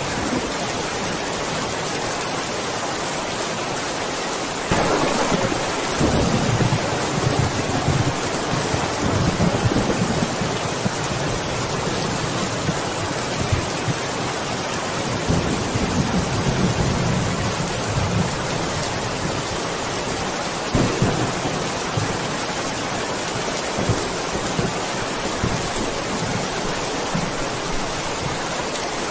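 Steady heavy rain in a thunderstorm. About five seconds in, a sudden thunderclap breaks into rolling rumbles, and more rumbles and sharper claps of thunder follow through the rest of the stretch.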